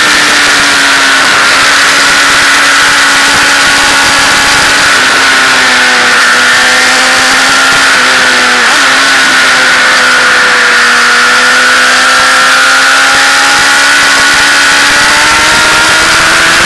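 Motorcycle engine running at road speed, heard from an onboard camera, with heavy wind rush on the microphone. The engine note sags slowly, dips briefly about eight seconds in, and climbs again near the end.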